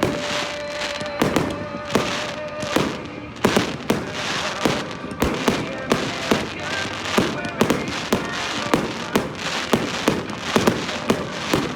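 A fireworks display with many sharp bangs and crackles following one another several times a second. Over the first three seconds, a sung or held musical note from the song's final line fades out.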